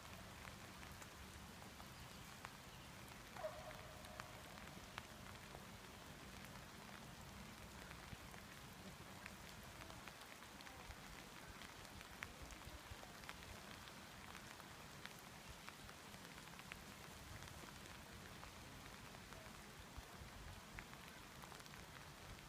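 Light rain falling, a faint even patter with scattered sharp drop ticks. A brief faint cry sounds about three and a half seconds in.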